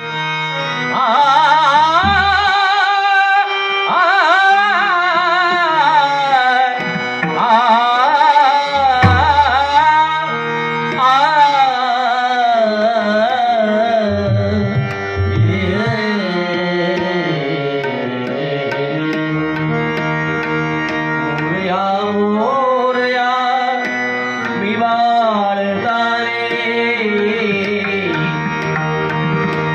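A male bhajan singer singing a devotional prayer in a high-pitched voice, drawing out long wavering notes, over percussion and instrumental accompaniment.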